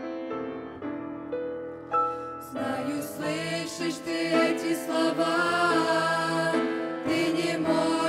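Grand piano playing an introduction alone. About two and a half seconds in, a small mixed group of voices comes in, singing a Russian song in harmony.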